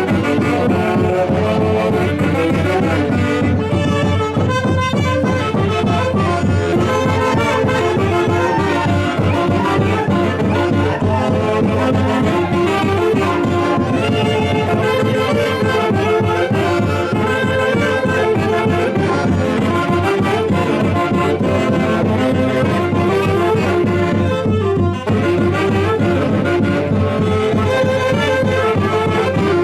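Huancayo orquesta típica playing a Santiago tune, led by wind instruments in a full, steady ensemble with no break.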